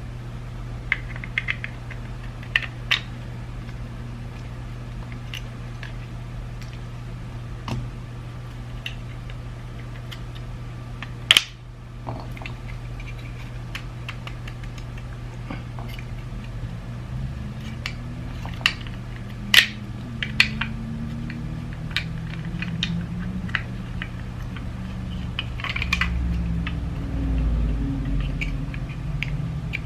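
Scattered light clicks and taps of small plastic parts of a BMW iDrive controller being handled and fitted together during reassembly, over a steady low hum.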